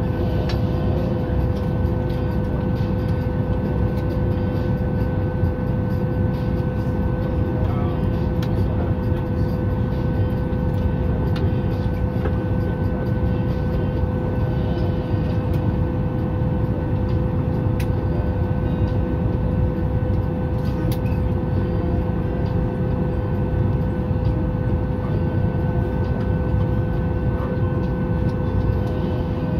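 Steady cabin drone inside a parked Boeing 737 MAX 8 before engine start, the air-conditioning and auxiliary power running with a constant low rumble and two steady whines, and a few faint clicks.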